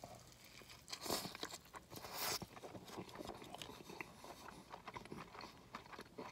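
Close-up biting into a roast beef sandwich and chewing it, soft and wet, with two louder noisy bursts about one and two seconds in.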